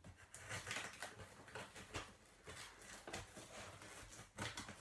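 Scissors cutting through packing tape along the seam of a cardboard box: a run of faint, irregular scratchy snips and scrapes.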